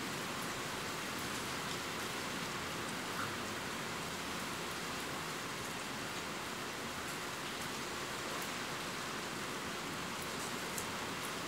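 Steady rain falling: an even, unbroken hiss with a few faint drop ticks scattered through it.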